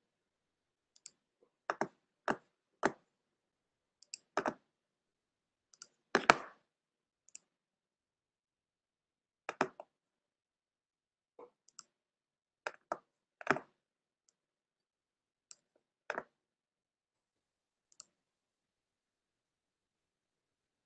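Scattered clicks of a computer mouse, irregular and some in quick pairs, stopping about 18 seconds in.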